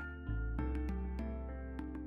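Instrumental background music: held notes over a sustained bass, slowly fading out.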